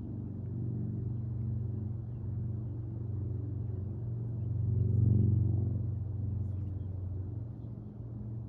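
Low, steady engine rumble that swells louder about five seconds in, then settles back.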